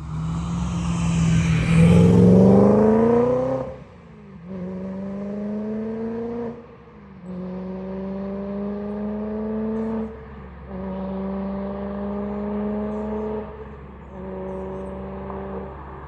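BMW E92 M3's V8 through an aftermarket exhaust, revving up hard in a long rising pull of about four seconds. It then runs in four shorter spells at a steadier, slowly rising pitch, each cut by a brief drop, over a steady low rumble.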